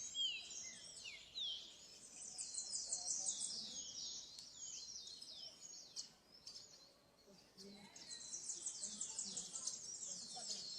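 A dense chorus of high, quick down-slurred bird chirps, many overlapping, thinning out in the middle and picking up again near the end.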